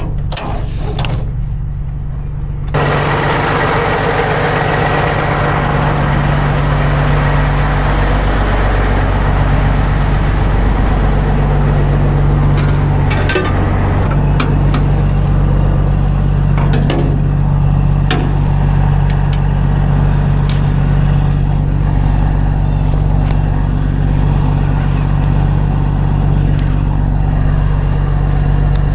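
Kenworth semi truck's diesel engine running steadily. A few seconds in, a loud steady rushing noise comes in suddenly over it and stays, with a few scattered clicks and knocks.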